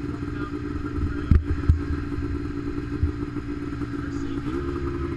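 Snowmobile engines idling at a race start line, a steady drone. A couple of sharp knocks come about a second and a half in, and near the end the engine note steps up a little as the throttle is opened.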